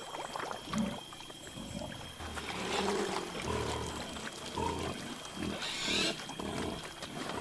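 A group of wild boar grunting and splashing as they wallow in a muddy waterhole. The grunts are short, low and irregular, with a splash of water just before the end.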